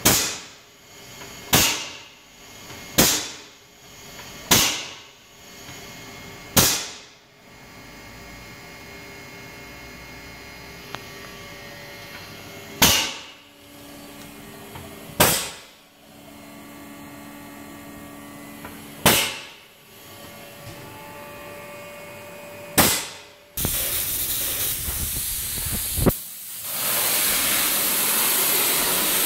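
Spray foam proportioner running with a steady hum, broken by sudden hissing bursts that fade over about a second, nine times at uneven intervals. Near the end a spray gun opens up with a loud steady hiss as it sprays open-cell foam, briefly cutting out once.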